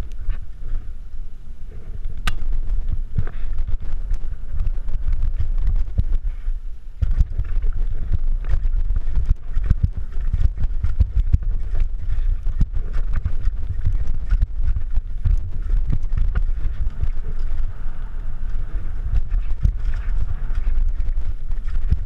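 Mountain bike descending a rough, rocky downhill trail: a steady low rumble of wind buffeting the helmet-mounted camera's microphone, with constant rattling clicks and knocks from the bike and tyres over rocks and roots.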